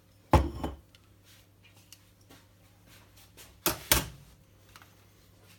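Knocks of hard objects being handled and set down on a bench: one thud about a third of a second in, then two in quick succession near four seconds.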